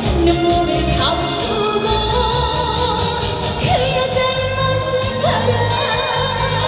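Trot song performed live: a female singer holding long notes with vibrato over a backing track with a pulsing bass beat.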